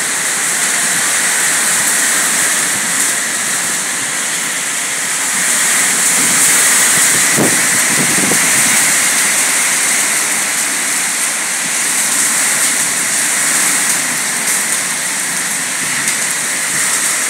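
Heavy rain pouring down in strong wind: a loud, steady rushing downpour, with a couple of brief knocks about halfway.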